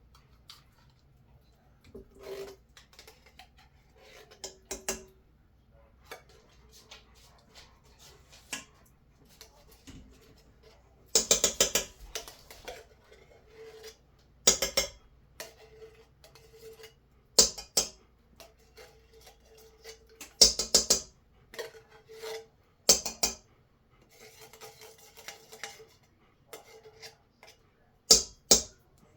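A spoon scraping pumpkin puree out and tapping it off against a mixing bowl, with soft scraping between sharp clattering knocks every few seconds.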